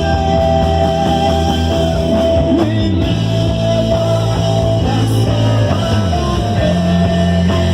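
Live worship band playing rock-style music with electric guitars, bass guitar, keyboard and drums, with long held notes over a steady full band.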